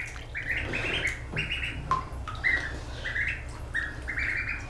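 Ducklings peeping, a quick string of short, repeated calls.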